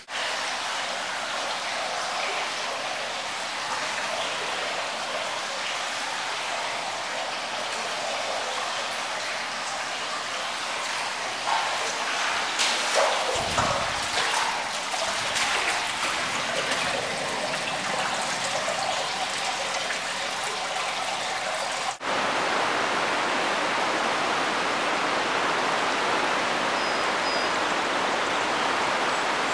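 Flash floodwater rushing past in a steady, even noise, with a few knocks and a brief low thump around the middle. After a cut about 22 seconds in, the rush of running floodwater goes on, a little louder.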